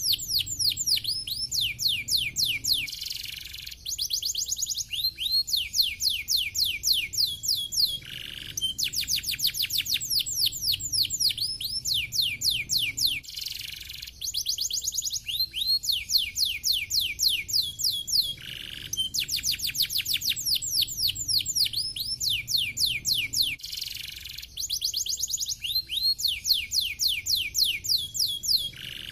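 Domestic canary singing: long phrases of fast, tightly packed descending trills, many notes a second, broken by brief pauses every few seconds.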